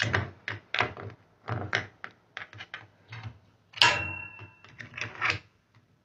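Flat-blade screwdriver prying a metal retaining clip off the plastic drain pump of a Kenmore washing machine: a run of irregular clicks and knocks, with one louder metallic clack about four seconds in that rings briefly.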